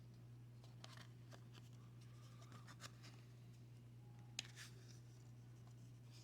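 Faint clicks and rustles of paper trading cards being handled and flipped through, with the sharpest click about four and a half seconds in, over a steady low hum.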